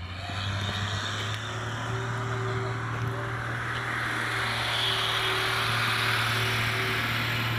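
A vehicle engine running steadily, heard as a constant low hum under an even outdoor hiss.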